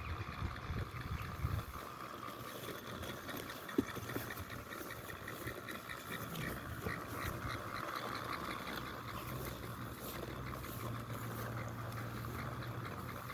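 Eeve robotic lawn mower running with a steady mechanical grinding noise, the sign of a fault that keeps it from cutting grass. There is one sharp click about four seconds in.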